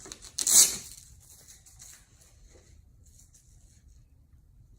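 A strap being pulled on the trolling motor, a single short tearing rasp about half a second in, followed by faint handling noise.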